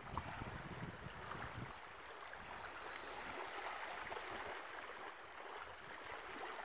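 Small waves lapping and washing onto a sandy shore as a steady soft wash, with wind rumbling on the microphone for the first second and a half.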